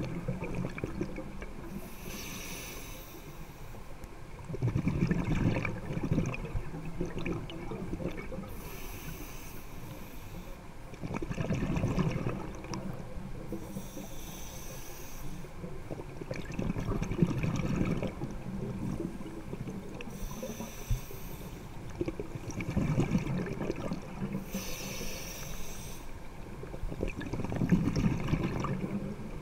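Scuba diver breathing through a regulator underwater. Each breath is a hissing inhale followed by a rumbling burst of exhaled bubbles, repeating about every six seconds, five breaths in all.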